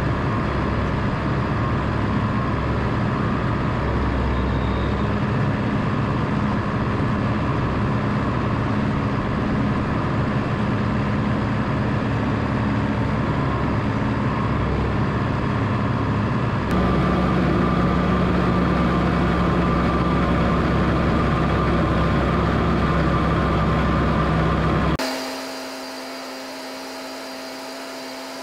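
Case IH tractor engine running steadily under load while mowing grass, a constant drone. About 17 seconds in it turns slightly louder, and near the end it drops suddenly to a quieter, thinner whine.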